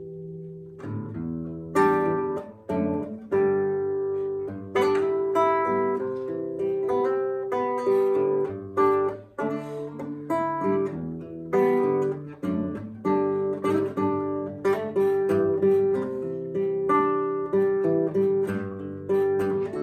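Takamine C128 handmade classical guitar with a spruce top and rosewood body, played fingerstyle: plucked melody notes over bass notes and chords, each ringing and decaying. A chord fades out at the start, and the playing pauses briefly just after nine seconds.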